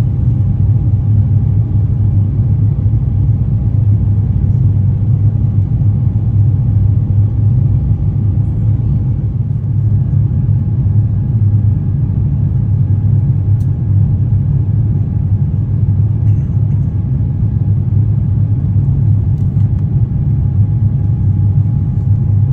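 Steady, loud cabin roar of an Airbus A350-1000 in flight: the Rolls-Royce Trent XWB engines and rushing airflow heard from a window seat, a deep rumble with a faint steady whine above it.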